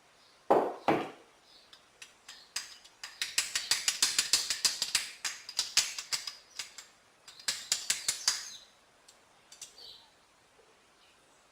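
Metal parts and tools being handled while a car starter motor is assembled: two knocks under a second in, then runs of rapid metallic ratcheting clicks.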